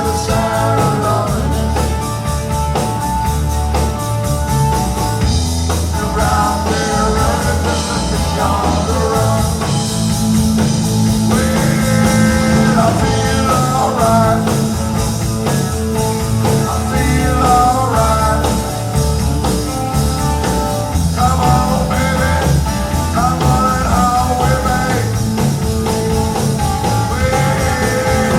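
Live band music with guitar: a country-rock song being played on stage.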